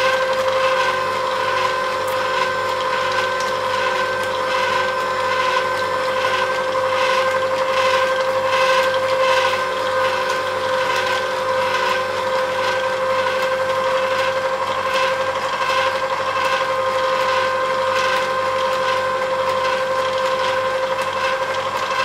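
Vertical slow masticating juicer running at the end of its pressing: a steady motor hum with a regular ticking, as the last of the juice drips out.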